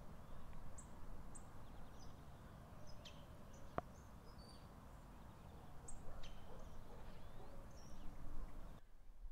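Low-level outdoor ambience: a steady low rumble with scattered short, high bird chirps and one sharp click about four seconds in. Near the end the rumble drops away abruptly, as the recording switches to the other microphone.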